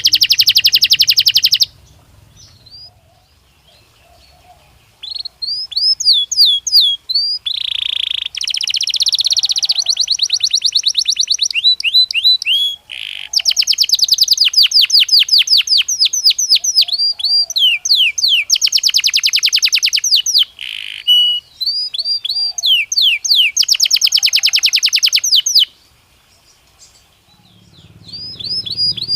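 Belgian canary (domestic canary) singing in long phrases of rapid rolling trills and quick down-sweeping whistled notes, high-pitched. It pauses for a few seconds about two seconds in and again near the end.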